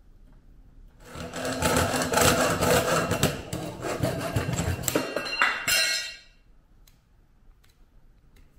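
Hand hacksaw cutting through the metal rail of a brush door-seal strip, with rapid back-and-forth strokes for about five seconds that stop suddenly about six seconds in.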